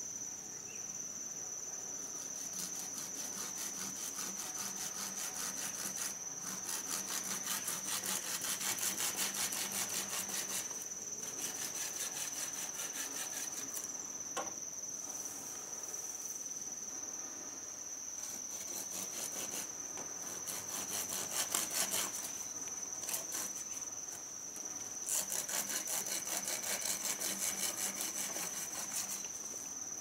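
Wood being cut with a hand saw in several bouts of a few seconds each, with short pauses between them. A steady high drone of insects runs underneath.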